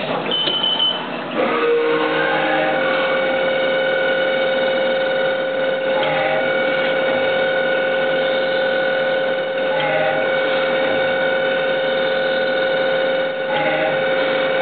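Haas TM-1 CNC mill changing tools and drilling Delrin: a short clatter at the start as the tool changer picks up the drill, then the spindle running with a steady high whine. Short whirs sweep in pitch about every four seconds as the machine moves the drill from one piece to the next.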